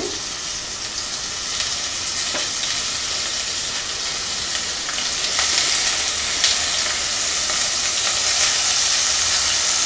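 Fruit pieces sizzling as they drop into hot ghee and oil in a stainless steel pressure cooker, the frying hiss getting louder as more fruit goes in, with a few light clicks of fruit and spatula against the pot.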